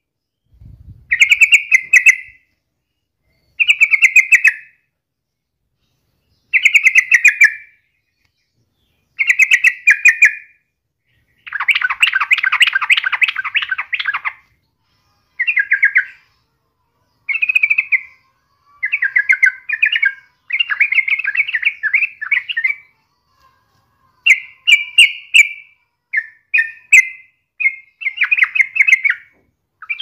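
Yellow-vented bulbul singing: short phrases of fast, chattering notes, each about a second long, repeated every two to three seconds, with one longer phrase of about three seconds near the middle.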